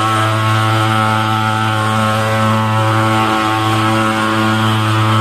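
Portable pulse-jet thermal fogging machine running steadily: a loud, even, buzzing drone.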